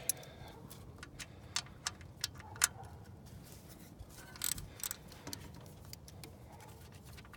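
Irregular light metallic clicks and taps of a hand wrench working the second bolt loose on a car's transmission neutral safety switch.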